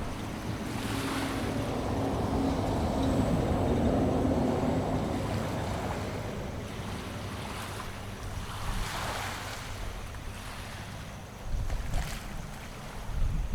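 Sea waves washing onto a sandy beach, swelling and ebbing, with the loudest wash a few seconds in. Wind gusts buffet the microphone with low rumbles near the end.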